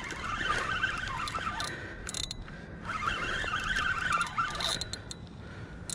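Fishing reel whirring as a hooked fish is reeled in, in two spells of about two seconds each with a short pause between.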